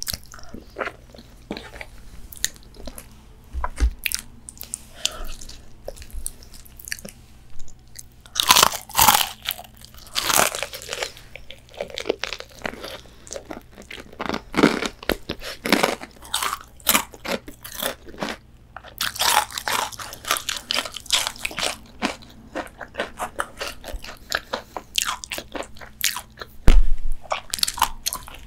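Close-miked crunching and chewing of KFC fried chicken: bites crackle through the crispy breaded coating in clusters, with wetter chewing in between. A single loud dull thump comes near the end.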